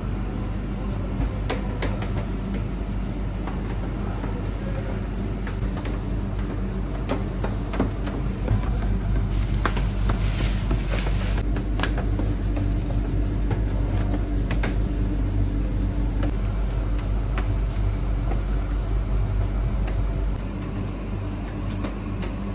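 Steady low mechanical hum of kitchen equipment, with scattered light knocks and taps of a wooden rolling pin and dough on a steel worktable. The hum gets a little louder about eight seconds in and falls back about twenty seconds in.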